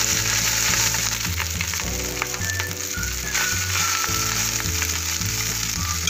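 Hot oil sizzling steadily in a large aluminium pot as wet boiled rice is dropped into it with a wire skimmer.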